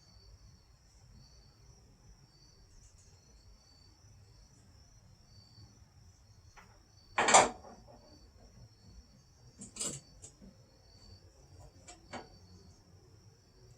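Crickets chirping steadily in a high, pulsing trill, with a few separate knocks and clunks from work on a car door. The loudest is a sharp clunk about halfway through.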